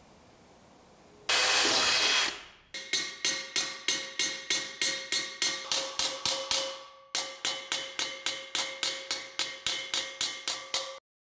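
Hammer striking a hand-forged carbon steel wok, about three to four blows a second, each leaving the pan ringing at a few steady pitches, with a short break about seven seconds in. Just before the strikes, a loud burst of noise lasts about a second.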